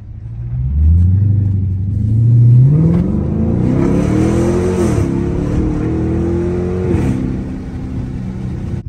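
Chrysler 300S's 5.7-litre Hemi V8 accelerating through a Carven R-Series exhaust with the mid muffler and resonator deleted, a deep exhaust note. The pitch rises steadily for about four seconds, drops sharply as the car shifts up about five seconds in, climbs again, then drops near seven seconds to a steadier, lower note.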